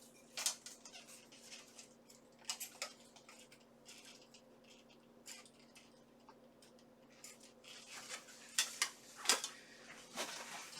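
Steel armor plates of a shoulder piece clinking and rattling as it is handled and strapped on: scattered light metallic clinks, with a denser run near the end.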